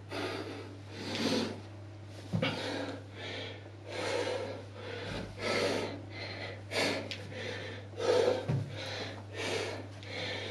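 A man breathing hard from exertion during bodyweight lunges, in quick, rhythmic breaths, with a steady low hum underneath.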